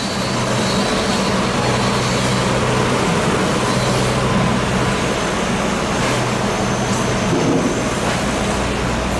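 Steady machine noise: a low engine-like hum under a broad, even hiss, with no distinct events.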